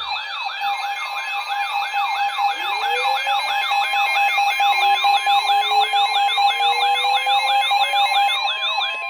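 Electronic weather-alert siren from a weather radio, sounding the alarm for a severe weather warning. It is a rapid rising yelp repeating about three times a second over steady tones, with a slower tone gliding upward from about two and a half seconds in.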